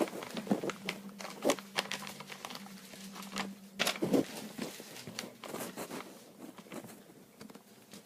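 Scattered light clicks and handling noises, strongest about a second and a half and four seconds in, over a faint steady hum that stops about halfway through.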